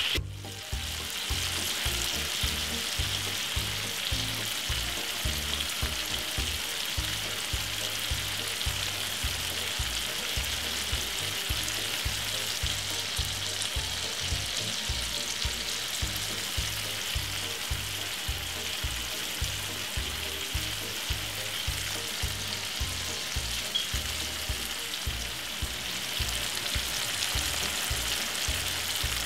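Chicken thighs sizzling steadily as they pan-fry in hot vegetable oil in a frying pan.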